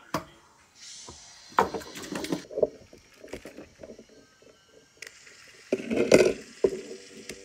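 A plastic Shooting Star Gordon toy engine being handled: clicks, knocks and rattles of its plastic body and wheels, loudest about two seconds in and again about six seconds in. Near the end a steady low hum sets in.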